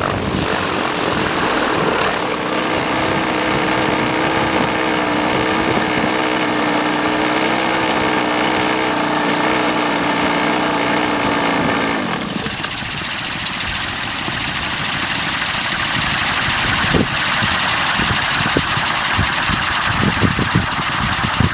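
Gas-powered RC helicopter's engine and rotors running with a steady drone that cuts out abruptly about twelve seconds in. After that comes a rushing noise with scattered knocks.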